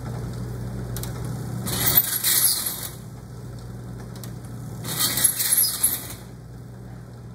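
Belsaw saw filing machine taking two file strokes across the teeth of an old hand saw, a rasping stroke about two seconds in and another about five seconds in, while it is cycled to check that the pawl feeds the saw forward and the file lands in the gullet. A steady low hum runs underneath.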